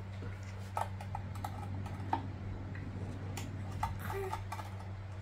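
Foil seal of a powdered-milk formula tin being pierced and peeled back by hand: a scattered series of short crinkles and clicks.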